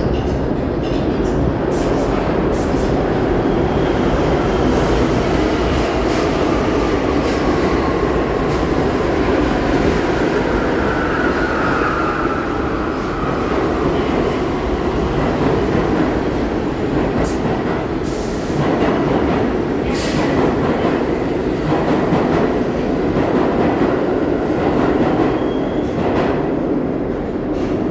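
R62A subway train pulling into the station and braking to a stop, with a loud, steady rumble of wheels on rail. A whine falls in pitch around the middle, and several sharp clicks come about two-thirds of the way through as it slows.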